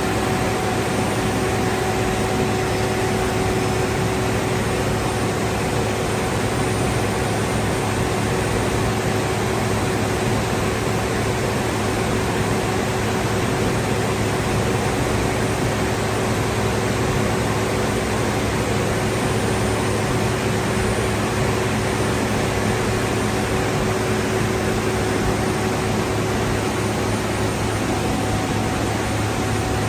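Steady machinery noise of a rock wool production line: a constant loud hiss with a low, unchanging hum.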